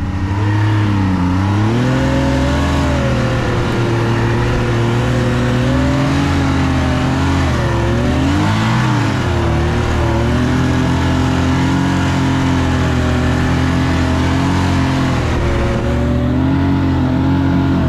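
Snowmobile engine running under load while riding, its pitch rising and falling with the throttle and dipping briefly about a second in and again around 8–9 seconds. The sled is breaking a fresh trail through deep, loose snow that gives little support.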